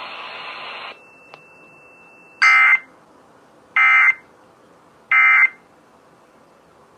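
Three short bursts of Emergency Alert System digital data tones (the SAME code), about a second and a half apart, the End of Message signal that closes a severe thunderstorm warning broadcast. Before them, radio hiss cuts off about a second in.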